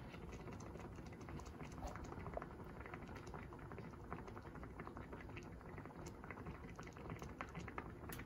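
Thick chipotle tomato sauce with shredded chicken simmering gently in a sauté pan, faint and irregular little bubbling pops and ticks.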